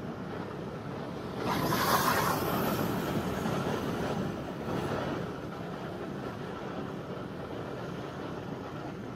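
Motorcycle riding through town traffic: a steady low engine and road rumble. A louder rush of traffic noise swells about a second and a half in, fades over the next few seconds, and comes back briefly around five seconds.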